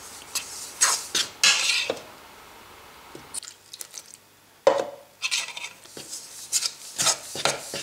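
A metal fork mixing flour and water into a crumbly dough in a mixing bowl, with quick scrapes and clicks against the bowl. There is a lull of about two seconds, then a sharp knock a little past halfway, followed by more quick strokes as hands work the dough.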